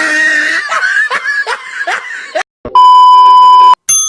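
Laughter in short repeated bursts, then after a short gap a loud steady beep lasting about a second, followed by a single ding that rings on and fades.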